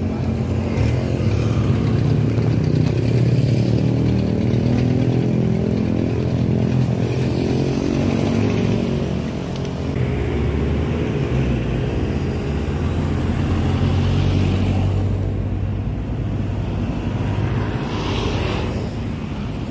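Road traffic: motor vehicle engines running with a steady low hum whose pitch drifts up and down, and vehicles passing close by twice in the second half.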